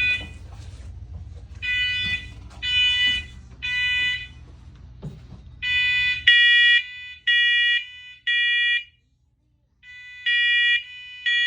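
First Alert smoke and carbon monoxide alarm sounding its smoke-alarm test: loud, high-pitched beeps in groups of three, about one a second, with a short pause between groups.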